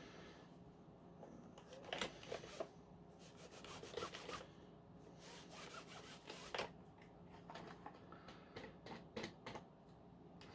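Faint, irregular rubbing and scraping strokes with a few sharper clicks, from cleaning grime off the sole plate of a Dyson V10 cleaner head.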